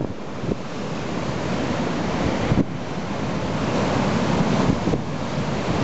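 Rough storm sea: waves breaking and churning white water against a harbour wall in a steady roar, with strong wind buffeting the microphone.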